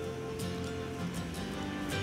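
Gentle background music with plucked acoustic guitar.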